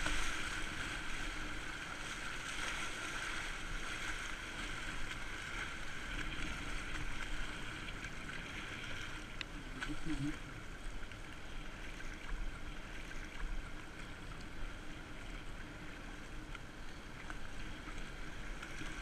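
Fast river water rushing and churning around a kayak in choppy rapids, heard close from a camera on the boat, with low wind rumble on the microphone.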